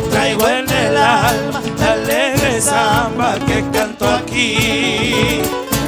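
Live Argentine folk music: classical guitars strummed with regular drum beats under a voice singing with vibrato. About four and a half seconds in, a brief high, wavering vocal line sounds over the top.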